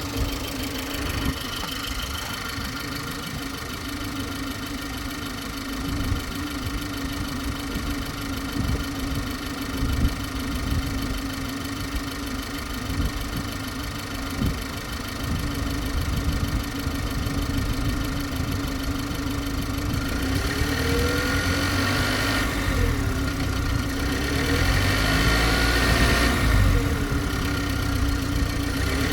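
BMW G20 330i's turbocharged four-cylinder engine running at idle with a steady hum and a few sharp knocks. From about twenty seconds in, tones that swoop up and down in pitch join it, the strange noise the owner is recording.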